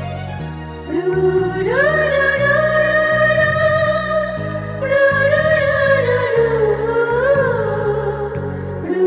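Bangla sad ringtone music: a voice sings long held, wavering notes that enter about a second in, over a repeating low keyboard-like accompaniment.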